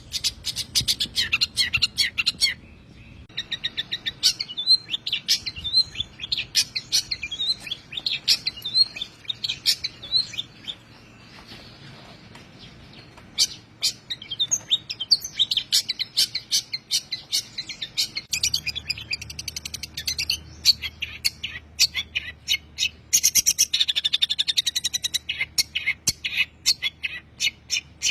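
Long-tailed shrike (pentet) singing a fast, varied song of sharp chips and short whistled notes, in rapid bursts with a pause of a couple of seconds about halfway through.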